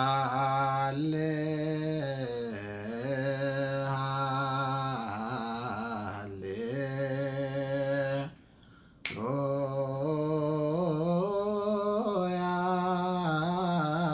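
A man chanting solo in Ethiopian Orthodox Ge'ez liturgical style (zema), an Abun hymn sung in long, wavering, melismatic held notes. He breaks off for about a second near the eight-second mark, and a single sharp click sounds as he comes back in.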